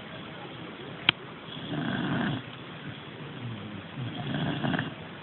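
Snoring in slow, regular breaths: two rough, low snores about two and a half seconds apart. A single sharp click about a second in.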